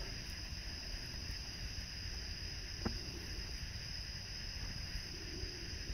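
Crickets chirring steadily in a high, even tone over a low background rumble, with a single faint click about three seconds in.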